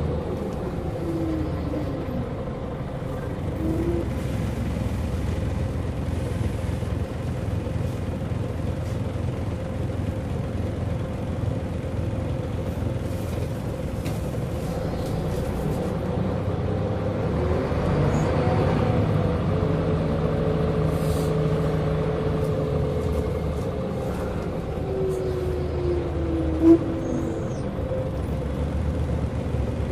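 Scania L94UB single-decker bus heard from inside the passenger saloon while driving: engine and ZF gearbox running, with a steady drone and whines that glide down and up in pitch as the bus slows and pulls away. A single sharp click a few seconds before the end.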